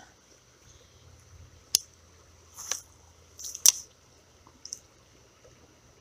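Handling noise from a spinning rod and reel: a single sharp click about two seconds in, then two short scraping swishes a second apart, the second the loudest, and a faint one near the end, over a faint steady hiss.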